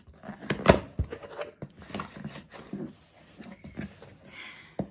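Blade slitting the tape on a cardboard shipping box: irregular scrapes, clicks and taps as the cardboard is cut and handled.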